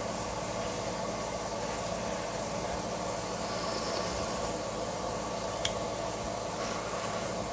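Steady cooking noise from the hob: soup boiling in a pot and sweet potatoes frying in a pan. A single short click comes a little past halfway.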